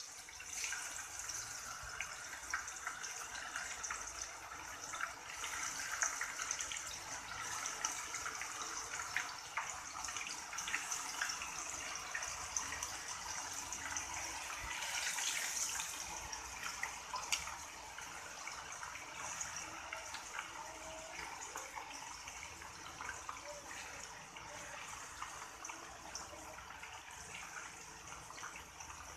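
Turmeric-and-salt-marinated chicken pieces shallow-frying in hot oil in a frying pan, being half-cooked: a steady sizzle with many small crackles and pops as the pieces go into the oil.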